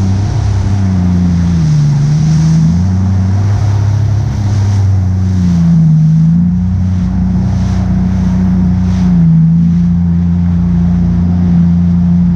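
Motorboat engine running steadily, its pitch dipping and rising a few times before holding even, over wind and water noise.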